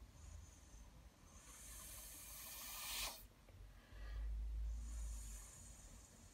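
Two long breathy hisses, about two seconds each, like a person exhaling close to the microphone; the second comes with a low rumble of breath hitting the mic.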